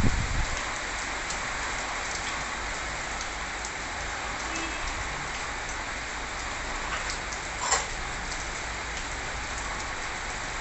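Steady rain falling on plants, an even hiss scattered with small drop ticks. There is one louder drop tap about three quarters of the way through.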